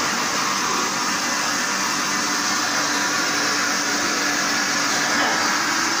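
Water pouring steadily from a pipe into the stainless-steel tank of a grain and bean washing machine, splashing onto its perforated sieve in an even rush, with a faint low hum underneath.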